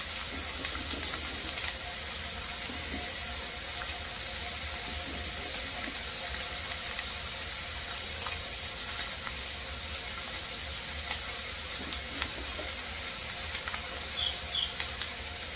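Diced steak, chicken and scrambled egg sizzling steadily in a frying pan, with scattered faint crackles.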